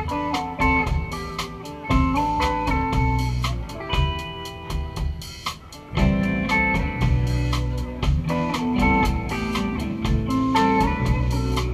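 Live band playing an instrumental passage: electric guitars over a drum kit keeping a steady beat. About five seconds in the playing thins out for a moment, then the full band comes back in.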